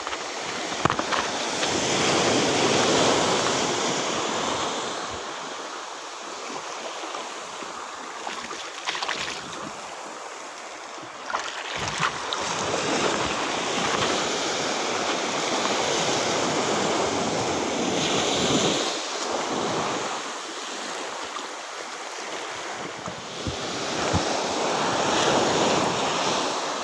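Sea waves washing onto the shore, a broad rushing noise that swells and fades every several seconds, with wind buffeting the microphone.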